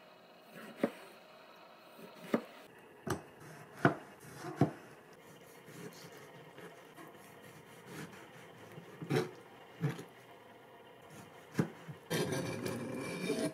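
Nakiri knife blade slicing and dicing a tomato, each stroke ending in a short knock on a plastic cutting board, coming singly and irregularly. Near the end comes a longer, rough scraping stretch.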